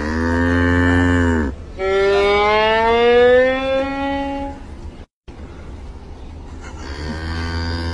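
Cattle mooing in long calls, alternating with a violin bowed in a slow rising slide. First a moo, then the violin glide, then, after a brief cut in the sound, another moo near the end.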